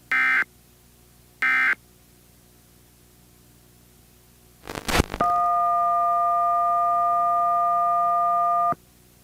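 Emergency Alert System end-of-message data bursts: two short buzzy digital beeps about a second and a half apart, the last of a set of three. About 5 seconds in comes a brief crackle of static, then a steady electronic tone of several notes that holds for about three and a half seconds and cuts off suddenly.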